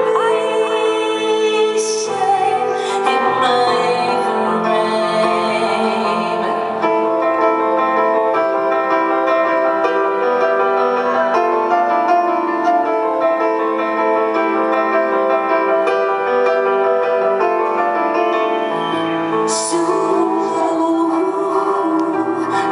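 Live music: sustained piano and keyboard chords with a woman singing, her voice clearest near the start and again near the end.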